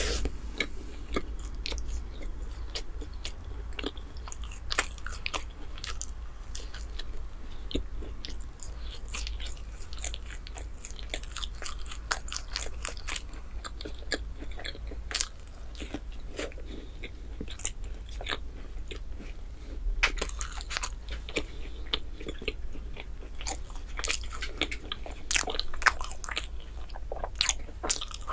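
Close-miked eating sounds: a person biting and chewing soft chocolate bread, a steady run of small wet mouth clicks and crackles, with a few louder bites near the end.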